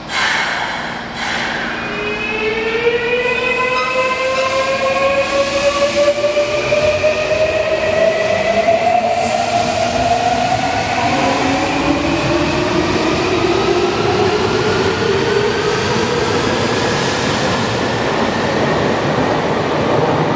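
A Toei 6300 series subway train pulls away from the platform, starting with two short hisses. Then its Mitsubishi GTO-VVVF inverter whines in several tones that climb together as it accelerates, the sound known as the "tornado inverter". A second rising whine joins about halfway through as further cars pass, under steady running noise.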